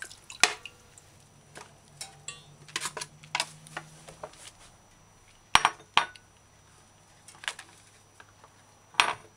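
Kitchen dishes being handled on a counter: a stainless-steel bowl and plates knocked and set down, giving scattered clinks and knocks with quiet between. The loudest knocks come about five and a half and six seconds in, and another near the end.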